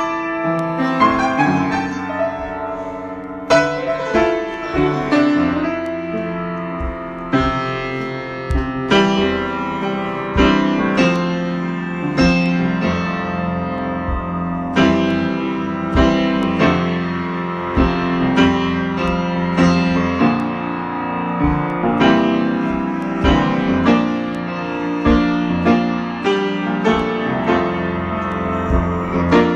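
Solo piano improvising: chords and single notes struck at an unhurried, uneven pace, each left to ring and overlap with the next.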